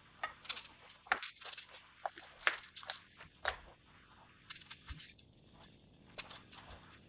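Scattered small splashes, drips and light clinks as ingredients are dropped by hand into a copper pot of water.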